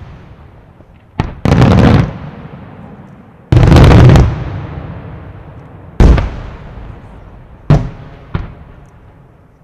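Aerial firework shells bursting one after another, each boom fading in a long echo. A sharp bang comes about a second in, followed by a longer, louder stretch of bursts. Another loud stretch comes at about three and a half seconds, then single sharp bangs around six seconds and twice near eight seconds.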